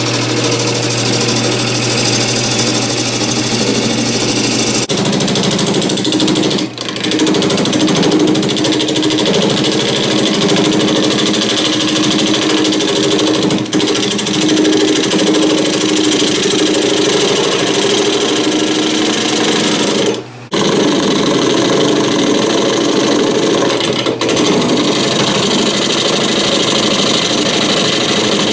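Power tool running steadily while cutting into green cherry wood, with a few brief pauses.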